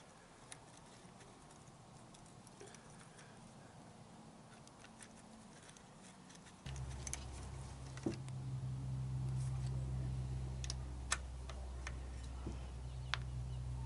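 Faint metallic clicks and taps of a screwdriver and bolts against the engine casing while a cover is fitted. About halfway through, a steady low hum comes in suddenly and carries on under the clicks.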